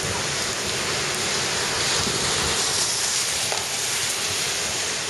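Heavy typhoon rain pouring down, a steady even hiss.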